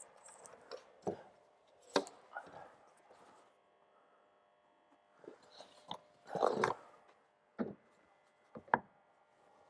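Irregular wooden knocks and taps as timber architrave is handled and fixed against a door liner, the sharpest knock about two seconds in and another near the end, with a busier scuffling cluster just after the middle.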